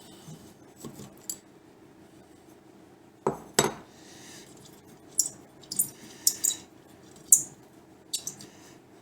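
Metal parts of a Handyman bench plane being taken off and dropped into a bucket: two heavy knocks about three seconds in, then a string of sharp metallic clinks.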